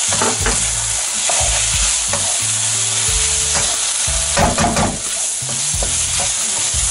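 Chicken, yardlong beans and lime leaves sizzling in red curry paste in a wok, with a spatula scraping the pan in repeated stirring strokes.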